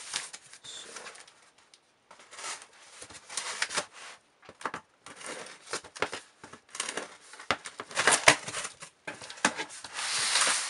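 Packaging being handled and opened by hand: irregular rustling and crackling of bag and box material with light clicks and knocks.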